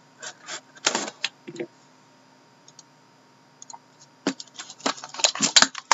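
A cardboard trading-card box being slit open and handled. Scattered scratches, taps and clicks come in a cluster in the first second and a half, then a denser, louder run in the last two seconds.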